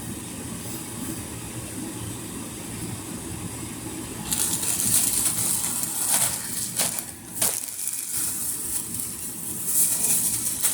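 Plastic packaging and swimsuit fabric rustling and crinkling as they are handled, starting about four seconds in with a few sharp crackles, over a low steady room background.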